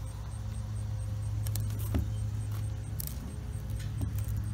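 Small metal pry tool clicking and scraping against the hot-glued lid of a wooden crate as it is worked open, a handful of sharp clicks over a steady low hum.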